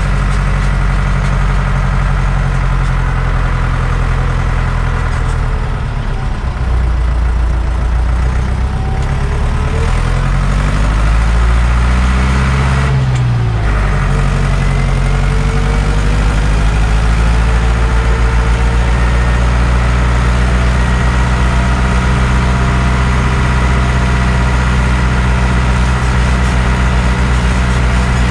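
Deutz-Fahr DX 3.60 tractor's air-cooled Deutz diesel engine running. Its pitch sags about six seconds in, climbs steadily for a few seconds, drops off sharply about halfway through, and then holds steady for the rest.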